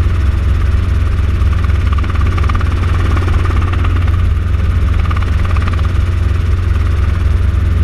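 Light helicopter in flight, heard from inside the cockpit: a steady, loud low drone of engine and rotor with a wash of airflow noise above it.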